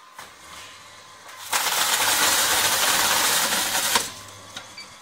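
Carton taper (case sealer) running a carton through: the drive motor's low hum starts just after the beginning, then about two and a half seconds of loud, even noise as the carton is driven through the machine, ending with a sharp click.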